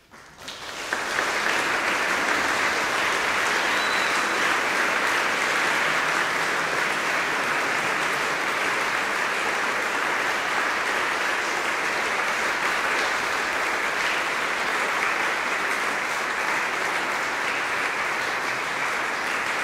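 Audience applauding, swelling in within the first second and then holding steady as dense clapping.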